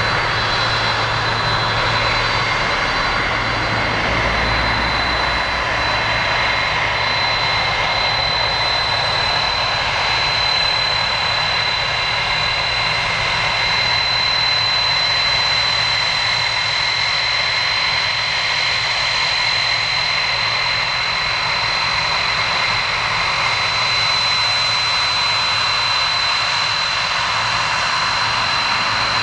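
Boeing 767-300's twin jet engines at taxi power, a steady loud whine with a high tone over a rushing noise, as the airliner taxis close by after landing.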